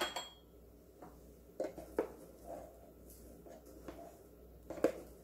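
A wooden spoon clinking against a glass mixing bowl as minced garlic is tipped in, with a brief high ring, followed by a few softer knocks and clinks of kitchenware.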